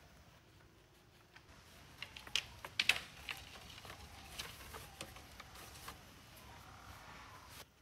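Bamboo pole knocking and clattering against the hut's wooden posts as it is handled and fitted into place: a cluster of sharp clicks about two to three seconds in, then scattered lighter taps.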